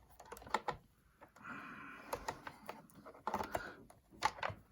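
Irregular small clicks and taps of hand tools, screws and small parts being handled while an iMac is taken apart, with a short scraping rustle in the middle.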